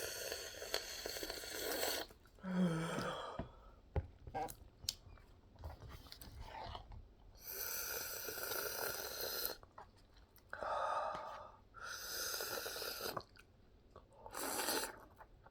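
Close-up mouth sounds of a person eating spicy noodles: chewing, with about six noisy stretches of a second or two each, broken by quieter gaps.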